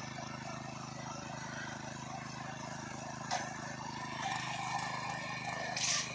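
An engine of the machine pulling the plough, running steadily at an even speed. There is a brief sharp sound about three seconds in and a short burst of hissing noise near the end.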